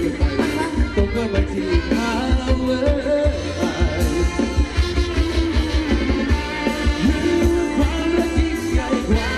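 Thai ramwong dance-band music: a singer over a band with a steady, pulsing beat.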